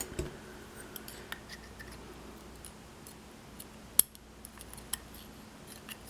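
Light metallic clicks and ticks of tweezers working inside a brass lock cylinder housing as pins and springs are taken out, with one sharper click about four seconds in.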